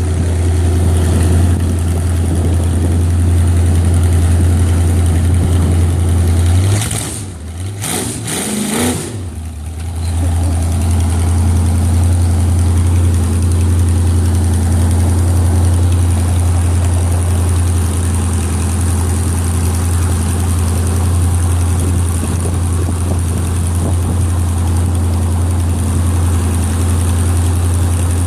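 Jet boat engine running with a steady low drone. About seven seconds in it dips briefly, then picks up again with a short rising note and settles back to a steady run.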